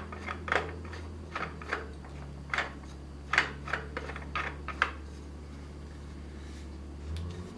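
Irregular sharp clicks and knocks of caddy accessory parts being handled and fitted, stopping about five seconds in, over a steady low background hum.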